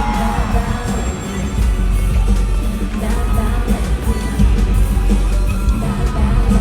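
Loud music with a heavy, steady bass beat and some singing.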